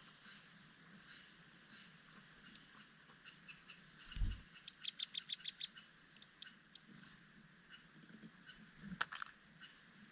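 Small songbirds chirping: scattered single high calls, with a quick run of about eight high chirps about five seconds in. A low thump comes just before the run and a sharp click about nine seconds in.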